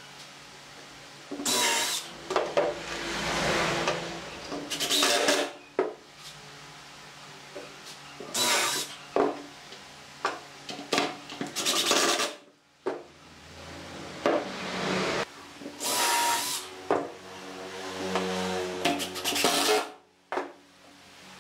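Cordless drill driving screws into pine boards in short bursts of a few seconds each, its motor whine rising and stopping. Between the bursts, wood pieces knock and rub against each other.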